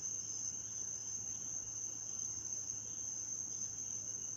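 Night insects trilling in a steady, unbroken high-pitched chorus.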